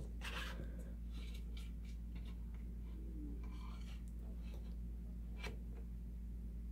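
Hands handling a 7-inch vinyl single and its paper picture sleeve: faint rustling of paper and light clicks of the disc being picked up and turned, with one sharper click about five and a half seconds in. A steady low hum runs underneath.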